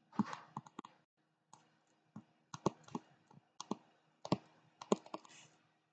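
Stylus tip tapping and clicking on a tablet screen while handwriting a word: a string of irregular sharp clicks, with a short pause about a second in.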